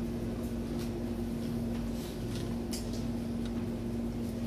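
Room tone in a small room: a steady low hum with a fainter higher tone over it, and a few faint small clicks.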